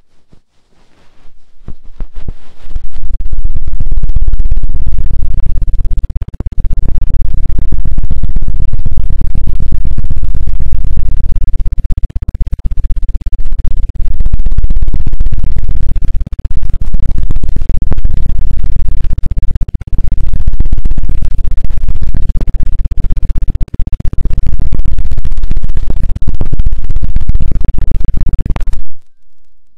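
Rapid, very loud scratching and rubbing right on an ASMR ear microphone: a dense run of quick strokes with a heavy low rumble, pausing briefly a few times and cutting off suddenly near the end.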